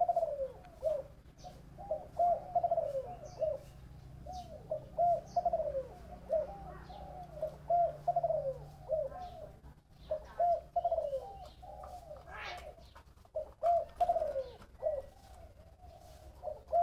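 Spotted dove cooing: repeated phrases, each a run of short, downward-bending coos, with brief pauses between the phrases.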